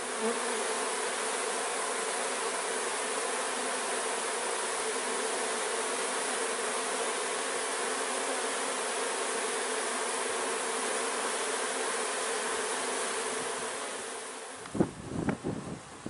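Honeybees of a newly hived swarm buzzing at the hive entrance: a dense, steady hum of many wings, the bees fanning to spread their pheromone and draw the swarm in. The hum fades about 14 seconds in, and a few sharp clicks and rustling follow near the end.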